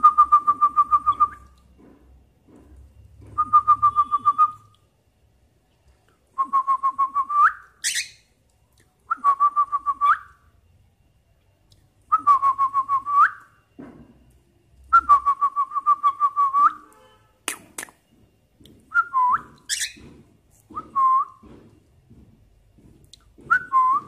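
Cockatiel whistling: about eight short phrases of a quavering, warbling whistle, each a second or two long, a few ending in a quick upward squeak.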